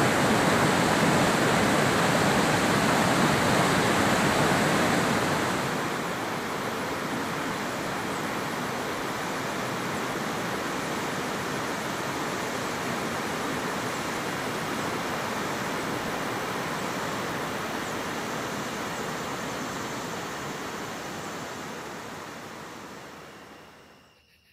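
Waterfall cascading over rock ledges: a steady rush of white water, loud and close at first, then quieter and more distant after about six seconds, fading out near the end.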